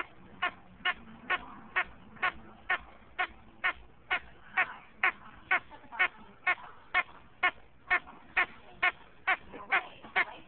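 A bullmastiff chewing a squeaky toy frog, squeezing out short, high squeaks in a steady rhythm of about two a second.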